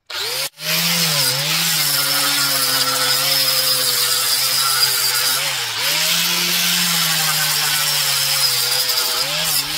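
DeWalt angle grinder with a 40-grit sanding disc sanding chainsaw-carved stump wood. The motor runs at a steady whine over a gritty hiss, dipping briefly in pitch a few times.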